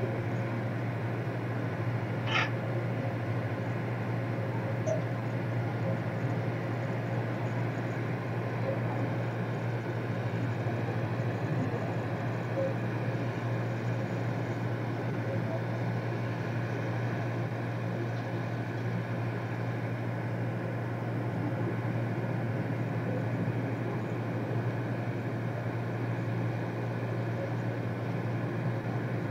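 Ferry's engines running with a steady low drone while the boat backs into its dock, with a single click about two seconds in.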